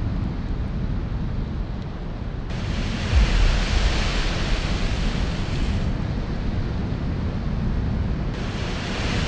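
Heavy ocean surf from a big breaking wave: a steady low rumble with wind on the microphone. A loud hiss comes in abruptly about two and a half seconds in, drops out around six seconds, and returns near the end.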